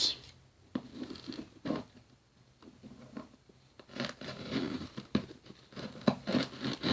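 Crinkling and rustling of wrapping being handled, with scattered light taps and clicks.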